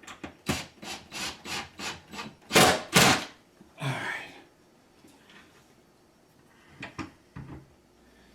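A cabinet-door hinge screw being turned by hand into the wooden cabinet: a quick run of short rubbing, scraping strokes, about four a second, loudest near three seconds in. A longer scrape follows, then a few soft knocks near the end.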